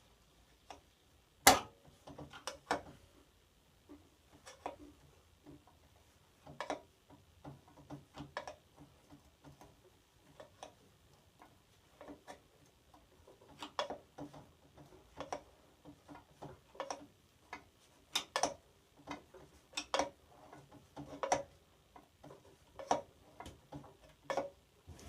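Sharp clicks and knocks at uneven spacing, roughly one a second, the loudest about a second and a half in, from working on a table saw to free a rust-stuck blade.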